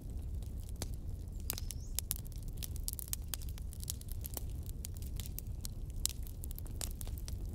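Fire crackling: irregular sharp pops and snaps, several a second, over a low steady rumble.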